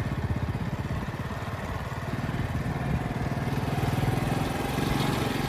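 Motorcycle engine running steadily at low speed while riding along a dirt track, with a rapid, even firing beat.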